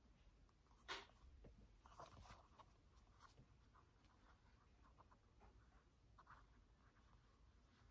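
Near silence, with faint rustles and light clicks as a foam Crocs clog is turned over in the hands; one slightly louder click about a second in.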